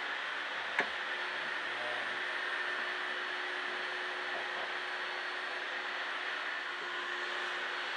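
Steady background hiss with a faint low hum, broken once by a single sharp click about a second in.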